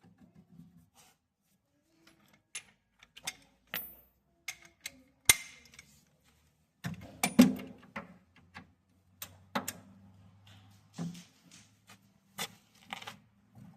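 Irregular metallic clicks and clanks of hand tools working on the diskbine's cutter bar bolts, with a few sharper knocks about five seconds in and again around seven to eight seconds.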